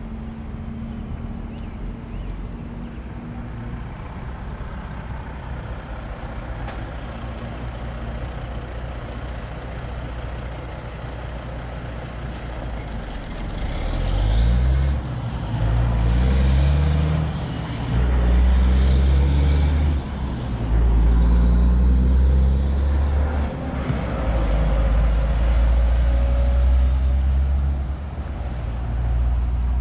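Road traffic hum, then from about halfway a heavy truck's diesel engine pulling away loudly, its pitch rising and dropping again and again as it shifts up through the gears.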